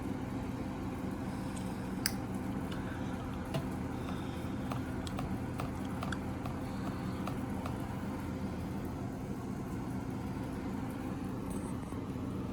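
Window air conditioner running with a steady low hum, joined by a few light clicks and ticks, the sharpest about two seconds in.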